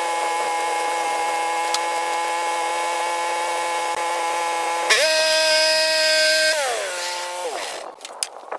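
Wood-milling machine running with a steady, high machine whine. About five seconds in the pitch jumps up for a second or so, then drops back and winds down to a stop near the end.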